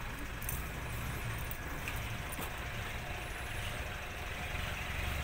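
A vehicle engine idling steadily, a low continuous hum.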